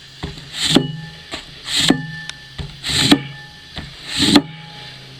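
Broad axe blade dragged across cardboard to strop the edge, four scraping strokes a little over a second apart, each growing louder and ending sharply.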